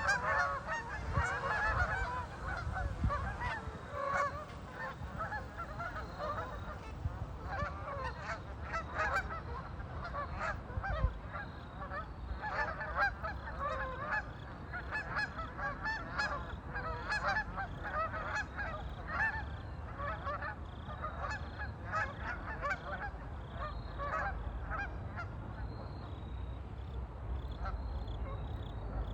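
A flock of waterfowl on a lake calling continuously, many short honking calls overlapping, with a steady low rumble underneath.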